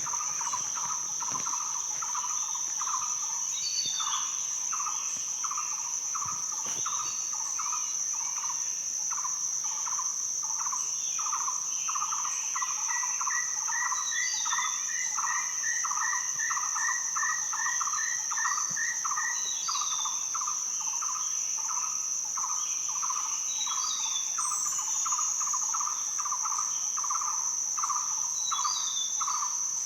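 Rainforest ambience: a steady high-pitched drone of cicadas and other insects over a regular pulsing chirp, with scattered bird calls. Partway through, a bird gives a trill of evenly repeated notes lasting several seconds.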